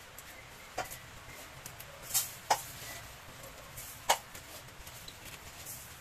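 Crisp fresh lettuce leaves snapped and torn apart by hand: about five sharp snaps spread across a few seconds, the loudest about two and a half and four seconds in, with a short crackle of leaves just before the first loud one.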